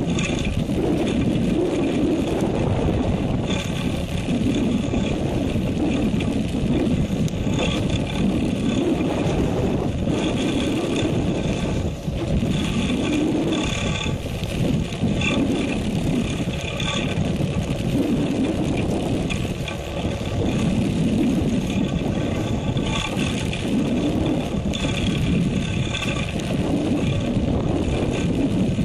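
Fishing boat's engine running steadily, mixed with the wash of the sea against the hull.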